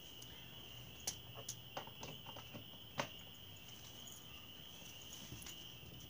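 A steady, high cricket trill, with a handful of light clicks and knocks as hands work at a galvanized pipe lamp and its valve-handle switch; the loudest clicks come about a second and three seconds in.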